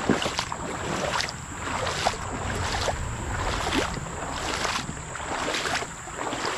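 Footsteps wading through a shallow creek, water splashing and sloshing with each step at about one step a second.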